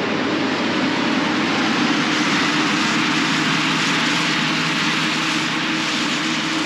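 Krone BiG X forage harvester running at work: a loud, steady machine noise with a constant low hum.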